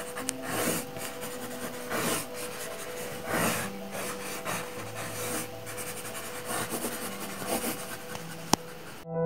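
Irregular rubbing and scraping strokes of an artist's tool working across a surface, several a second, stopping abruptly near the end.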